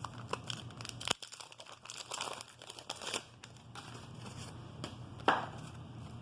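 Crinkling and rustling of wax-paper pack wrappers and cardboard trading cards being handled, with scattered soft clicks and one sharper click about five seconds in.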